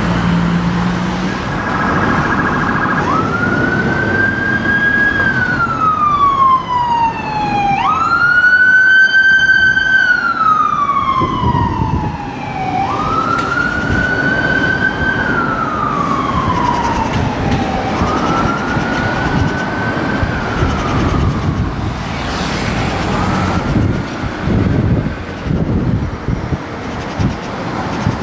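Ambulance siren on a slow wail: each cycle jumps quickly up in pitch, then falls slowly, repeating about every five seconds and growing fainter near the end. City traffic noise runs underneath.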